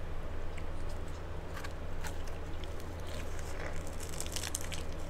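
Close-miked crunching of a hard taco shell being bitten and chewed: scattered sharp crackles at first, thickening into a dense crunch about three and a half seconds in. A steady low hum runs underneath.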